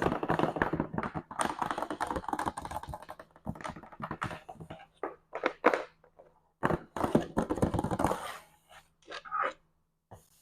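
Fingers tapping on and handling packaging, in dense runs of quick clicks with short pauses, over a faint steady hum.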